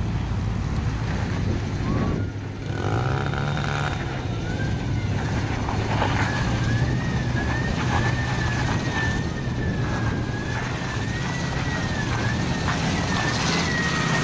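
Hummer off-road trucks' engines running and revving as they climb a dirt trail, with wind and tyre noise. From about five seconds in, a high wavering whine rises and falls over the engine.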